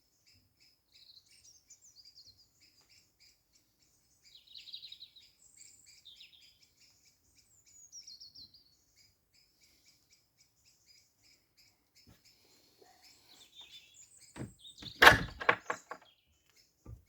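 Small birds chirping and singing. Near the end a garden gate is opened, giving one short, loud creak and knock.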